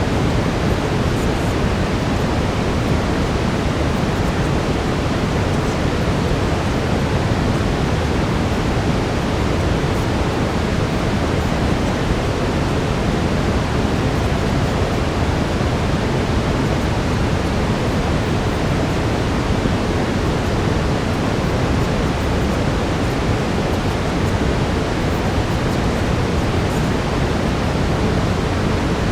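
Steady brown noise: an even, unbroken rushing hiss, heaviest in the low end, with no changes or events.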